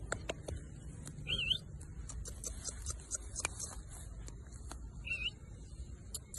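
German Shepherd puppies rustling through grass and clover, with scattered small clicks and crackles over a steady high hiss. Two short, high warbling squeaks, one just over a second in and one about five seconds in.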